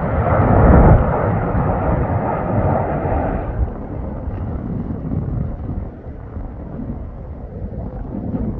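Jet airliner passing close by on its landing approach. The engine noise is loudest in the first second, holds for about three and a half seconds, then drops away to a low rumble.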